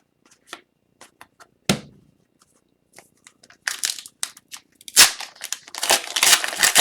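Foil wrapper of an Upper Deck Series 2 hockey card pack being crinkled and torn open, with cards handled: scattered light clicks, a sharp tap nearly two seconds in, and a dense stretch of crinkling and tearing from about five seconds in.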